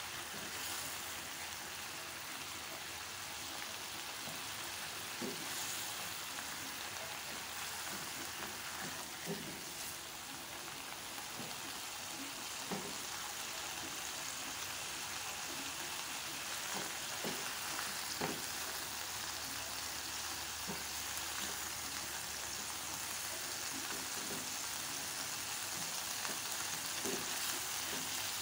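Shrimp, sliced chillies, shallots and garlic sizzling in a little water in a nonstick wok while being stirred with a silicone spatula, with scattered soft knocks of the spatula against the pan. The sizzle grows a little louder as the liquid cooks down.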